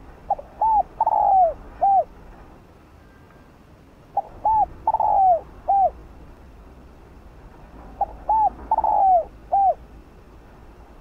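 Spotted dove cooing: three identical phrases about four seconds apart, each a short note, a rising-then-falling coo, a longer falling coo and a short closing coo.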